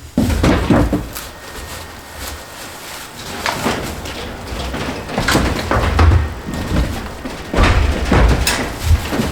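Irregular thumps, knocks and scraping of hand demolition work on wood and building debris, with several heavy thumps spread through.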